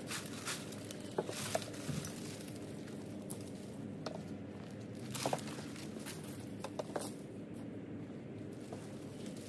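Grapevine pruning by hand: scattered short snips and rustles as secateurs cut through vine canes and the cut growth is handled.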